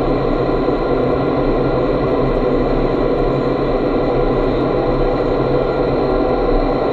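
Vertical wind tunnel running: a loud, steady rush of air blowing up through the flight chamber, with a few faint steady hums under it.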